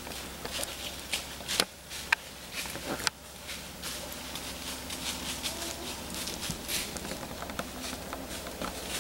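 Dry leaves and twigs rustling and crackling in irregular light clicks, with three sharper snaps about one and a half, two and three seconds in.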